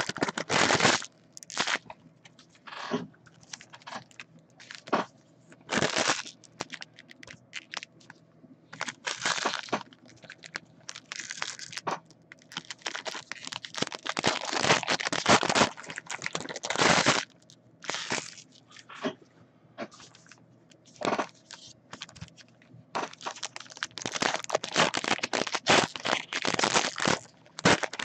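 Foil trading-card pack wrappers crinkling and crackling in the hands, in irregular bursts with short pauses between.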